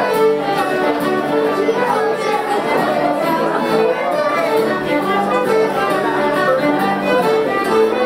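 Instrumental music: a melody of held notes over a steady accompaniment.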